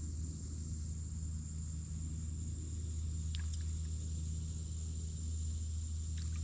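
An engine runs at a low, steady pitch throughout, with a steady high buzz above it and a few faint ticks about halfway through.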